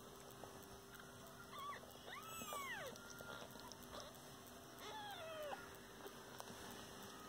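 Newborn kittens mewing faintly: a thin, high call that rises and falls about two seconds in, and another that slides downward about five seconds in.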